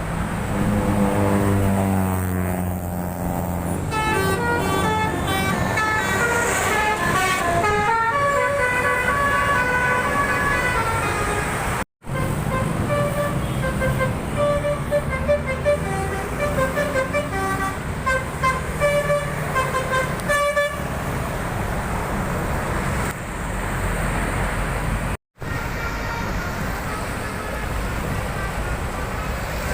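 Indonesian 'telolet' bus horns playing quick melodies of stepped horn notes, over the low rumble of bus engines. The horn tunes come in two long runs, and the sound drops out briefly twice.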